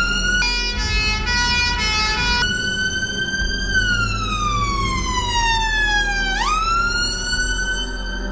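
Emergency vehicle siren over a low rumble. It sounds a held tone, then quickly alternating tones for about two seconds, then a long slow falling wail and a quick rise back up near the end.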